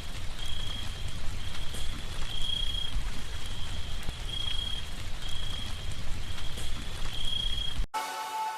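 Light rain falling steadily with crickets chirping, short high trills about once a second. The rain and crickets cut off abruptly near the end, and a different humming sound begins.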